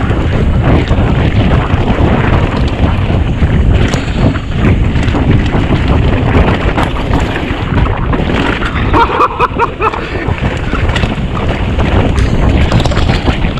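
Heavy wind buffeting the microphone of a camera on a downhill mountain bike at speed, over the rumble and rattle of the bike on rough trail. Sharp clicks and knocks come thick and fast in the second half.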